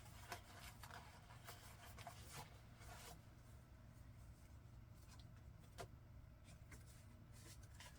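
Near silence with faint rustling and soft taps of paper being handled, over a low steady room hum.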